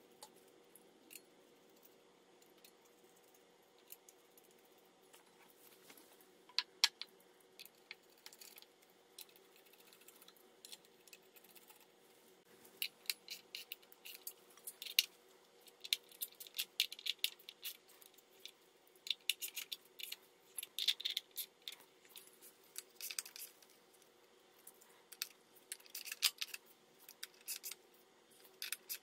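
Ratcheting wrench clicking in quick runs as pulley bolts are run down on a Mercedes M119 V8's accessory drive, with light metal clinks of bolts and pulleys being handled. The clicks are sparse at first and come in dense bursts from about halfway through, over a faint steady hum.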